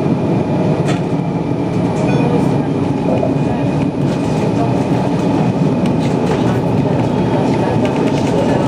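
A tram running along its line, heard from inside the car: a steady rumble of wheels on rails and running gear, with a faint steady high whine and a few light clicks.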